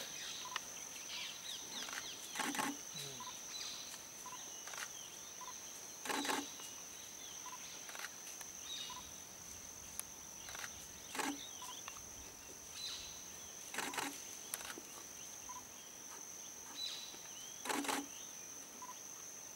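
Forest ambience: a steady high-pitched insect drone, broken by a short, sharp, louder sound about every three to four seconds.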